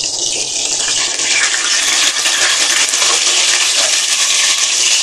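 Dried milkfish (daing na bangus) frying in hot oil in a wok: a steady, loud sizzle.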